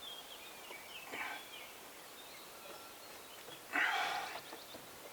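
Faint bird chirps, with two brief noisy sounds: a short one about a second in and a louder one of about half a second near four seconds.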